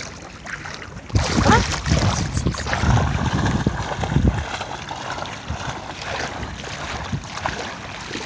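A pit bull puppy splashing as it bounds through shallow sea water, loudest from about a second in to about four and a half seconds, then settling to quieter lapping water. Wind buffets the microphone throughout.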